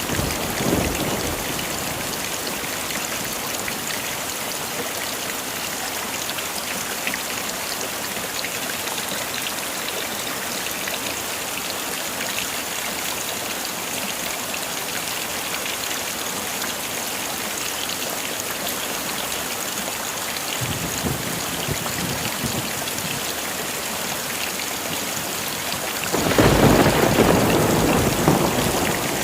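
Heavy rain falling steadily, an even hiss of many drops. A low thunder rumble fades in the first second, and a loud roll of thunder comes in about three seconds before the end.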